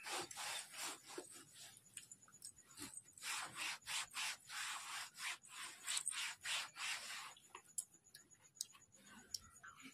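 Faint scratchy rubbing strokes in an uneven run of two or three a second, stopping about seven seconds in; a few light clicks follow.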